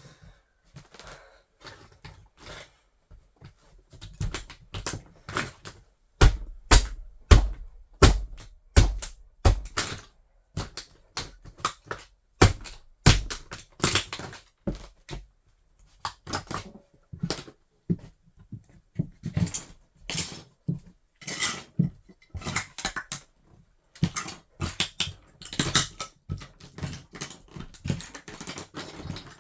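A toy car crunching and cracking under a wedge sandal: irregular sharp cracks and snaps, with heavy thuds of the foot pressing down between about 6 and 14 seconds, then denser crackling toward the end.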